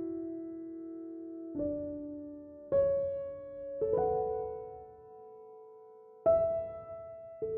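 Slow, gentle solo piano music. Soft notes and chords are struck about every one to two seconds and left to ring and fade.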